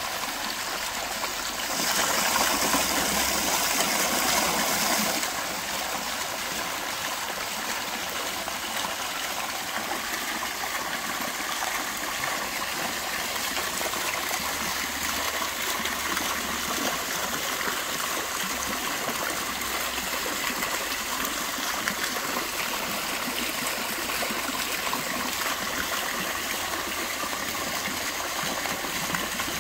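Jet fountain's water splashing back into a shallow concrete basin and spilling over the basin's edge: a steady rush and splash. It is louder and brighter for about three seconds near the start.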